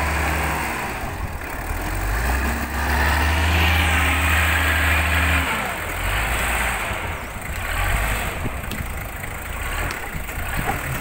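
TCM 45 wheel loader's diesel engine running under load as it lifts a bucket of earth. It speeds up about two seconds in, holds, then drops back about five and a half seconds in to a rougher, uneven running.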